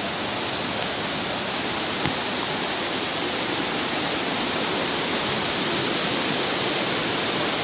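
Mountain stream rushing over rocks: a steady, even hiss of white water.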